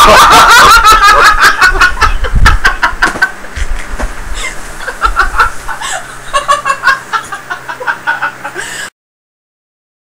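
Loud, breathless laughter in quick repeated bursts from two people play-fighting, with low thuds of bodies bumping on the bed and the webcam in the first few seconds. It cuts off suddenly to silence about nine seconds in.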